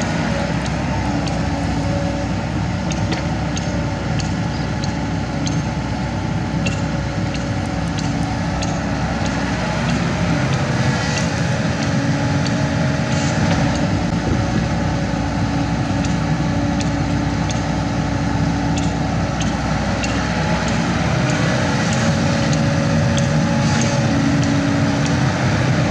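Kobelco SK75 mini excavator's diesel engine running steadily while it works, with scattered light clicks and knocks over the engine sound.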